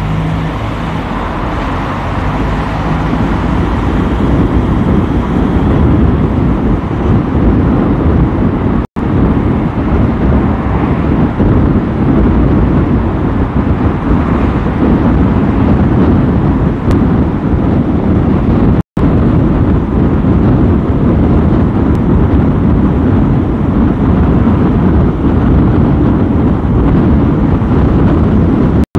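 Steady road and traffic rumble from a car driving through city streets. The sound cuts out for an instant twice, about 9 and 19 seconds in.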